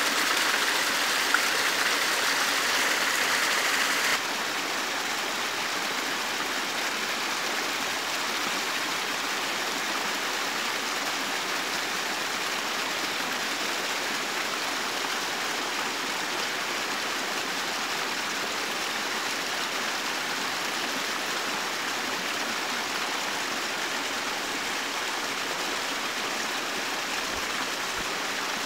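Small stream flowing steadily, a continuous rush of running water. It is louder for the first four seconds or so, then drops suddenly to a slightly softer level.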